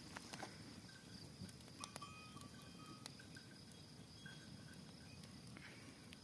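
Small open wood fire crackling faintly, with scattered small snaps. Faint high chirps come and go about two seconds in.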